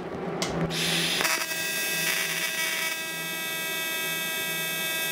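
AC TIG welding arc on thin aluminum cans at about 30 amps, set to an AC frequency of about 365 Hz: a steady, high-pitched electric buzz. It strikes about a second in with a brief hiss, then holds steady.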